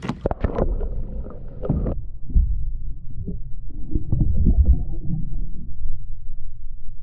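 Water splashing against a camera as it is plunged into lake water, then from about two seconds in a muffled, low rumble and gurgle of water heard from under the surface.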